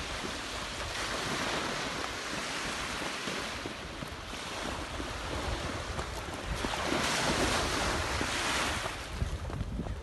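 Wind blowing across the microphone over small lake waves washing onto a sandy shore; the wind grows louder about two-thirds of the way through.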